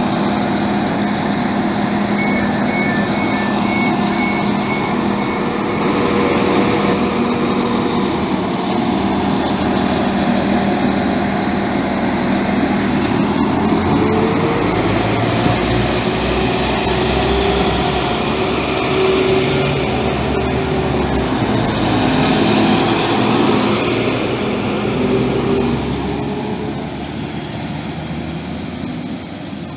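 Diesel multiple unit's engines running as the train pulls along the platform close by, the engine note rising as it accelerates, then fading as it draws away near the end. A short run of high beeps about two seconds in.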